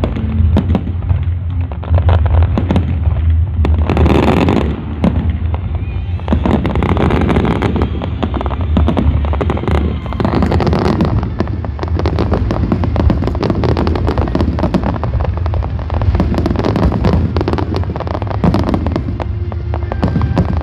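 Fireworks display: a dense, continuous barrage of shell bursts and crackling, with a loud hissing surge about four seconds in.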